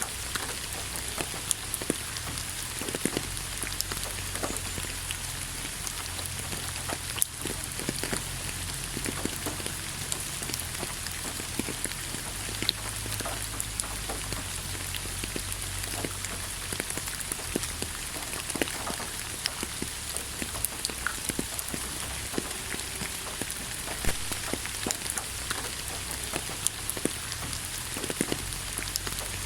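Steady rain falling, with many individual drops tapping sharply on a hard surface over a constant hiss and a low steady rumble underneath.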